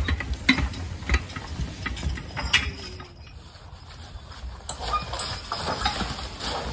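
Team of draft horses walking over dry leaf litter, hooves crunching and shuffling with intermittent clicks and knocks. It goes quieter about halfway through, then the crunching comes back denser and closer.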